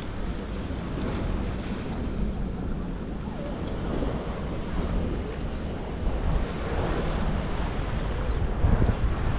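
Wind buffeting the microphone over a steady wash of sea surf, with a heavy low rumble throughout.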